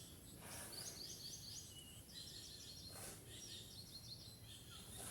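A songbird singing faintly, repeating a short phrase of quick high chirps every second or so, over a low steady outdoor background rumble.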